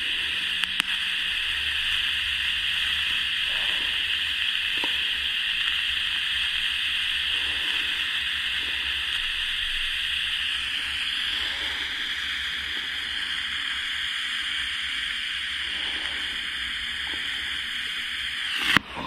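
TIG welding arc hissing steadily as a nut bracket is welded onto a KTM 450XC quad's swing arm, then cutting off suddenly near the end as the arc is broken.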